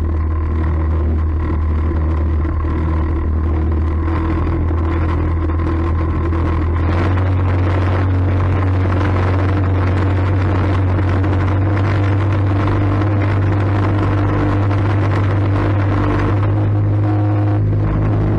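A small aluminium boat's outboard motor running steadily while under way. Its note steps up slightly about seven seconds in.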